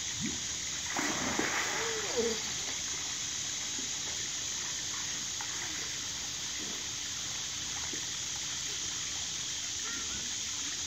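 Steady rush of water from a pool slide's water feed spilling into a swimming pool, with a brief splash about a second in.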